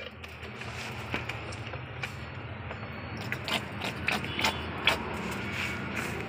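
Steady low background hum at a street-food stall, with scattered light clicks and clinks of utensils as an egg roll is put together, a few more of them about three and a half to five seconds in.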